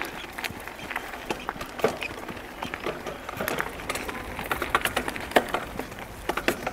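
Mountain bike drivetrain with a SRAM GX Eagle AXS wireless rear derailleur, shifted rapidly while pedalling: the chain hops across the cassette cogs with irregular clicks and ticks over steady tyre noise on a dirt track.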